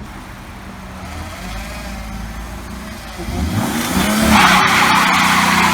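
Car engine running, then revving up hard about three seconds in, joined by a loud hissing screech of spinning tyres.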